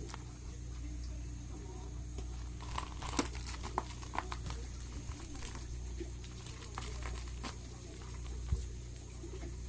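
A kitten playing with a toy: scattered light clicks and crinkles, most of them bunched about three to four seconds in, over a steady low hum.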